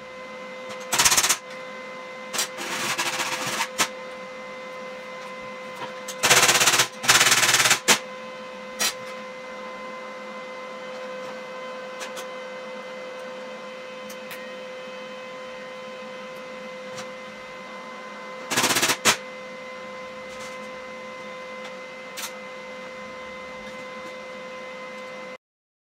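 Welding steel in short bursts, like tack welds: several bursts of welding arc, the longest about a second and a half, over a steady hum from the welding machine. The sound cuts off suddenly near the end.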